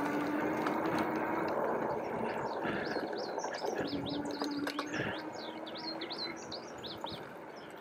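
Electric mountain bike's rear hub motor whining at a steady pitch over rolling tyre and trail noise, the whine dropping out and returning midway. Birds chirp in quick short calls from about three seconds in, and the riding noise fades toward the end.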